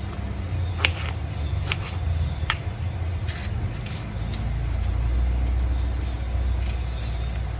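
Kitchen knife cutting tomatoes on a plastic cutting board: several short sharp taps as the blade meets the board, over a steady low rumble.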